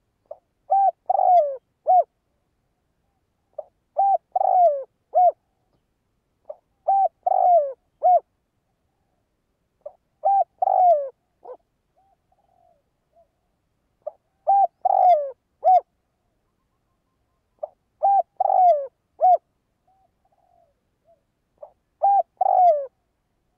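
Spotted dove cooing: seven repeated call phrases about every three seconds, each a short lead-in note followed by a quick run of rolling coos with a slightly falling note near its end. This is the insistent territorial cooing of a decoy dove, used to provoke wild doves.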